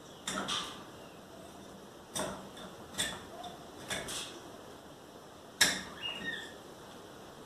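Utility knife scoring the plastic insulation of electrical wire, slowly and carefully so as not to cut the copper. It gives a handful of short, irregular scrapes and clicks, and a sharper click about two-thirds of the way through is the loudest.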